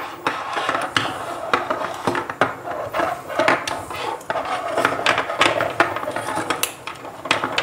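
Small white plastic modular switches being handled and set down on a tabletop, with many light clicks and knocks of plastic and the rub of wires dragging.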